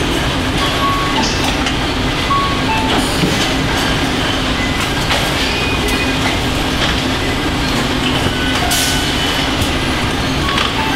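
Steady din of a car assembly line: a constant mechanical hum with scattered clicks and clanks, and short beeps at several pitches.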